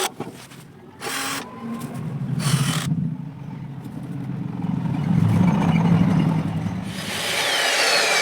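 Electric chop saw's motor running, a steady hum that grows louder over several seconds. There are two short hissing bursts before it and a harsher high hiss near the end.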